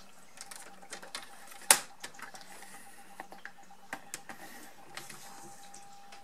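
Paper trimmer's scoring head being run along its plastic track to score cardstock: small clicks and rattles, with one sharp loud click about a second and a half in.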